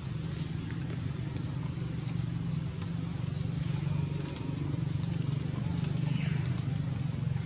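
Steady low hum of a running engine or motor.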